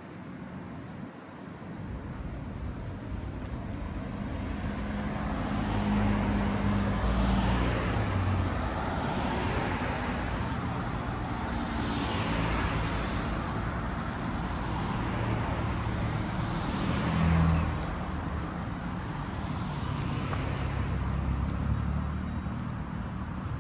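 Road traffic: a steady low rumble of engines with several cars passing one after another, each a rising and falling tyre swoosh. The traffic grows louder over the first few seconds.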